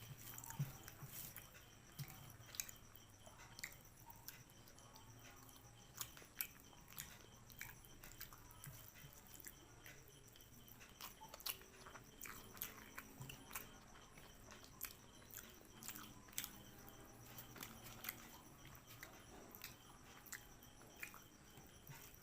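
A person eating at close range: quiet chewing and biting with scattered sharp clicks and small cracks, irregular throughout.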